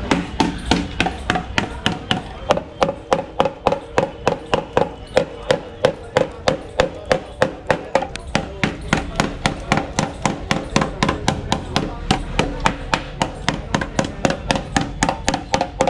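Rapid hammer blows, about three or four a second, on the rust-holed steel underside of a Bajaj Chetak scooter body near its stand. The metal there is rusted through.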